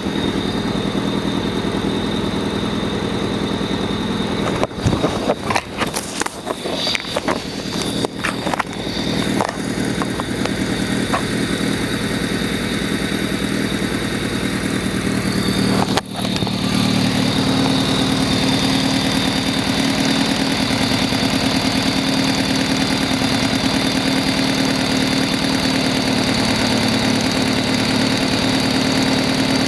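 Honda D16Y7 1.6-litre four-cylinder engine running at idle, an engine with a misfire the owner can't yet explain. Irregular sharp clicks and knocks sound over it for a few seconds early on, and about halfway the sound cuts out for a moment and comes back louder and deeper.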